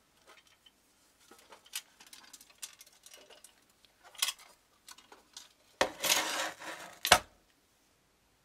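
Antique sheet-brass hand-warmer box being handled and turned over in gloved hands: scattered light metallic clicks and clinks, then about six seconds in a loud scraping rattle of metal lasting about a second and a half, ending in a sharp knock.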